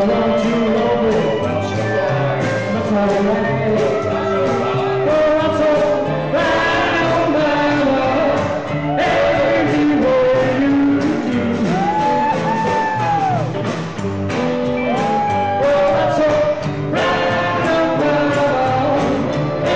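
Live rockabilly band playing, with several male voices singing over electric guitar, upright double bass and drums.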